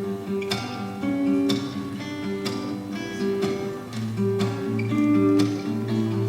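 Guitar strummed in a steady rhythm, an instrumental passage between sung lines.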